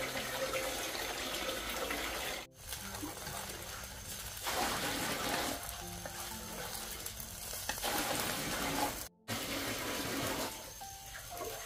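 Water running from a tap during a bath, with quiet melodic background music. The sound drops out abruptly twice, briefly each time.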